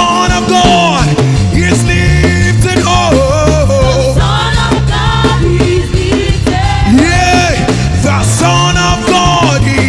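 Gospel worship music: a band with drums backs a singer's long, sliding vocal lines.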